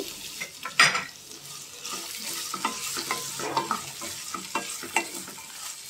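Chopped vegetables and freshly added tomato sizzling in hot oil in a kadai while a wooden spatula stirs and scrapes them around the pan. There is one sharp knock a little under a second in.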